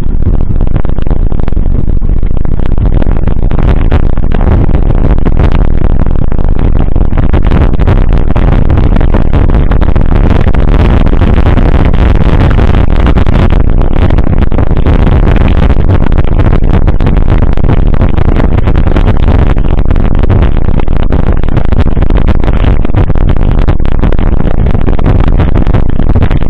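Loud, steady rumbling noise without clear tones.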